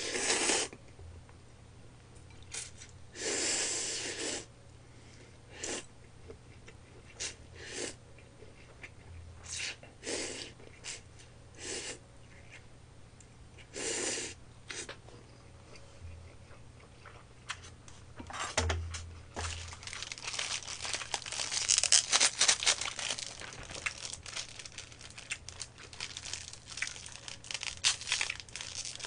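Buckwheat soba noodles being slurped in several short bursts, then a long stretch of close-up crackly chewing and mouth clicks from about two-thirds of the way in.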